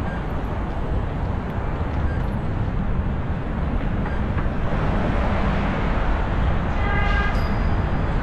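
Steady wind rush and road noise on a bike-mounted camera while riding through city traffic. A brief high-pitched tone with several overtones sounds about seven seconds in.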